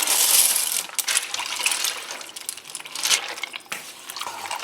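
Chicken broth pouring into a cooking pot in a steady gush that tails off about a second in, followed by light clinks and rustling.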